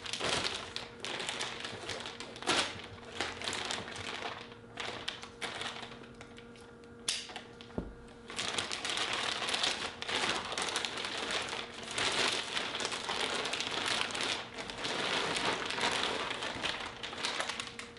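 Thin plastic bag being handled and opened: crinkling and rustling, in short scattered bursts at first and almost without a break from about halfway on as the pillow is pulled out of it.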